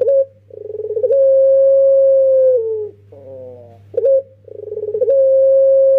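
Young collared dove (puter) cooing its long-drawn 'pelung' call twice: each phrase is a short note, then a rolling buildup, then a long held note that drops in pitch at the end. A faint steady low hum runs underneath.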